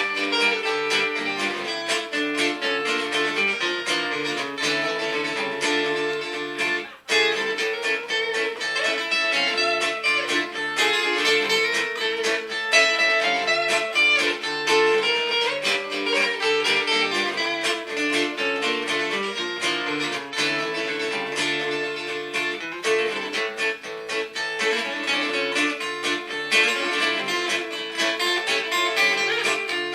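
Instrumental electric guitar playing a sustained lead melody over a looped guitar backing, with a brief near-break about seven seconds in.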